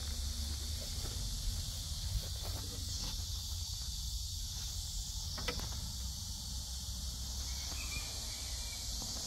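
Insects droning steadily in a high, hissing band that swells now and then, over a low rumble of wind on the microphone, with one sharp click about five and a half seconds in.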